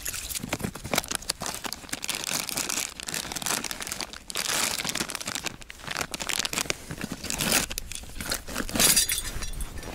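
Plastic packet of groundbait crinkling and a bag being rummaged through, with irregular rustling and scattered clicks. The crinkling is loudest about halfway through and again near the end.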